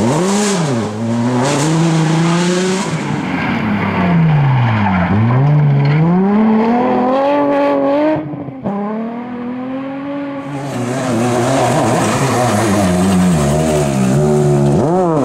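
Rally car engines revving hard, their pitch climbing and dropping again and again through gear changes and braking. One car's sound breaks off about eight seconds in and another car's engine takes over.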